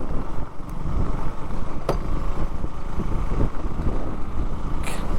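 Motorcycle riding over a rough, rocky forest track: a steady noisy rumble of engine and wind on the camera, with a couple of sharp knocks from the bumpy ground.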